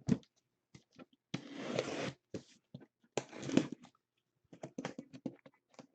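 Packaging being handled: two stretches of rustling, tearing noise, then a run of small clicks and taps near the end.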